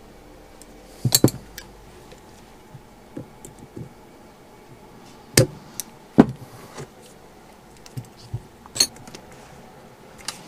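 Pliers working steel split pins on a motorcycle foot peg bar, bending the pin legs over: a few sharp metallic clicks spaced out over several seconds, the loudest a double click about a second in, with fainter taps between.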